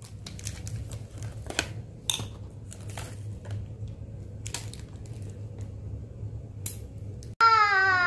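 Plastic markers and crayons clicking and tapping against each other and a clear plastic tub as they are handled, a scattering of light clicks over a low steady hum. Near the end a child's drawn-out voice starts.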